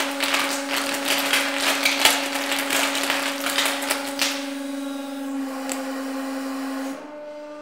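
Giant bubble wrap popping in a dense, rapid crackle as a hydraulic press crushes it, over the steady hum of the press's hydraulic pump. The popping dies out after about four seconds, once the bubbles in the middle are all burst, and the pump hum drops off near the end.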